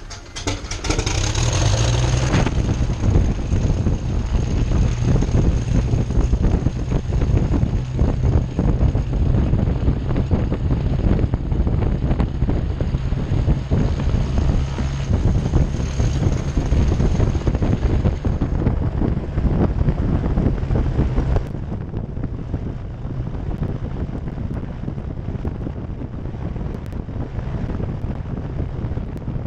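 Cessna 340's twin turbocharged six-cylinder piston engines running on the ground, with propeller wash buffeting a tail-mounted microphone. The engines get louder about half a second in, a thin high whine sits over them until about two-thirds through, and the level drops somewhat soon after.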